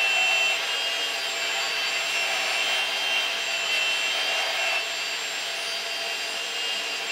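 Small belt sander running steadily while a metal extension nut is held against the belt and ground down. The sound drops a little about five seconds in.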